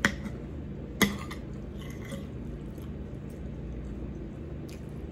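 Metal fork and spoon clinking against a pan while eating: two light clinks about a second apart, then a few faint taps, with quiet chewing over a low steady hum.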